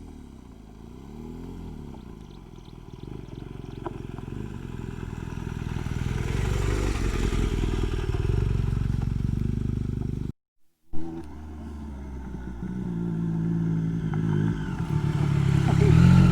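Motorcycle engines running on the move, their pitch rising and falling with the throttle, with wind rushing over the microphone building toward the middle. The sound drops out suddenly for about half a second some ten seconds in, then the engines run on, loudest near the end.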